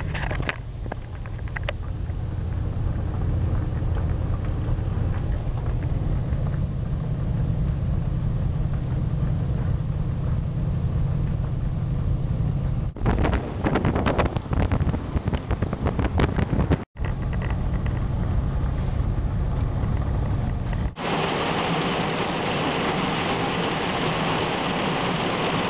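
Car driving, a steady low road and engine rumble heard from inside, broken about halfway by a few seconds of rapid rattling. In the last few seconds the rumble gives way to a steady hiss of rain.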